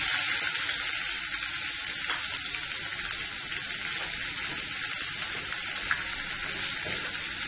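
Chopped onions frying in hot oil in a pan: a steady hissing sizzle, a little louder at the start and then settling.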